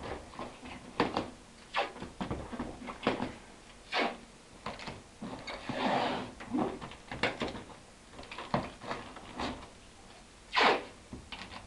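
Packing tape being pulled off the roll, torn and pressed onto a cardboard carton: a string of short rips and taps, with a longer pull of tape about six seconds in and a loud tear near the end.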